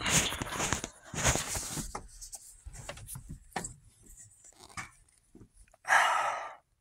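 Handling noise: rustling and scraping as the phone is moved and brushed against the truck cab's interior, two longer rustles in the first two seconds, scattered clicks after, and a short breathy burst near the end.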